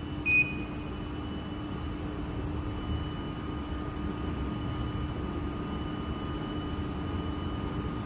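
A handheld addressable fire alarm device programmer gives one short, high beep as a key is pressed to read back a smoke detector's address. A steady low hum runs underneath.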